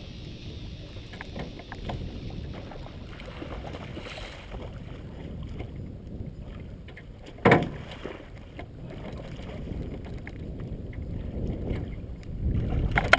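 Wind buffeting the microphone and water slapping against a small aluminum fishing boat, with one sharp knock about seven and a half seconds in. Near the end the noise grows louder and busier as a hooked muskie thrashes at the surface beside the landing net.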